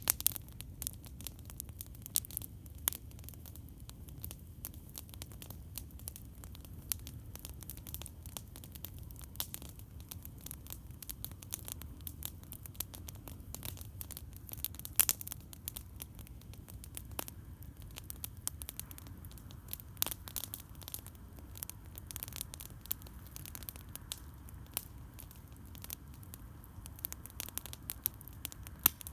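Campfire crackling: irregular sharp pops and snaps from burning wood over a steady low rumble, with a louder pop about halfway through.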